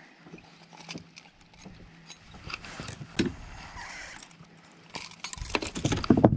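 Metal jaw spreader and pliers clinking and clicking in a pike's mouth as the hook is worked out, with scattered knocks that come thicker and louder near the end.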